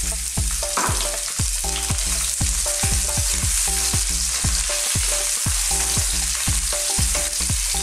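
Sliced onion and chili sizzling steadily in hot oil in a pan while being stirred with a wooden spatula. Underneath runs a regular beat of low thumps and short notes, about two a second.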